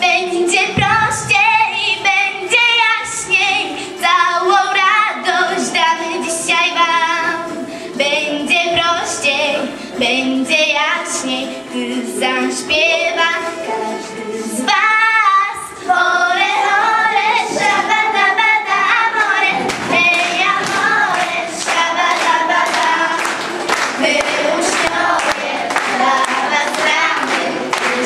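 Girls singing a lively song together into microphones over a steady beat, getting louder from about halfway through.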